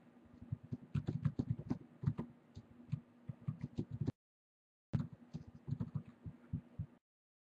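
Typing on a computer keyboard: irregular quick keystrokes, several a second, over a steady low hum. The sound drops out for about a second partway through, then the typing resumes.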